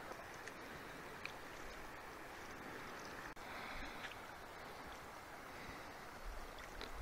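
Steady, faint rush of a wide, fast river flowing, with a few small clicks.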